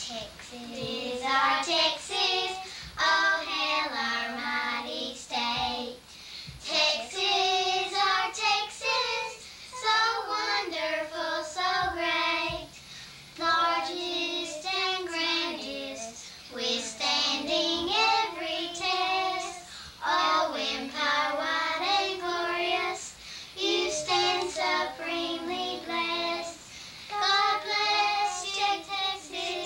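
Young girls singing a song together without accompaniment, in phrases of a few seconds with short breaks between lines.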